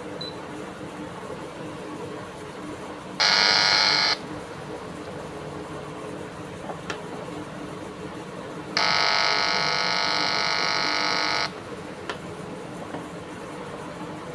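Two steady electronic buzzer tones, the first about a second long, the second about three seconds, over a steady low hum, with a couple of faint clicks between them.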